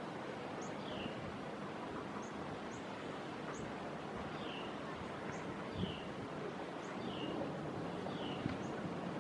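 A bird repeating a short, falling chirp every second or so, with fainter, higher chirps between, over a steady rush of wind.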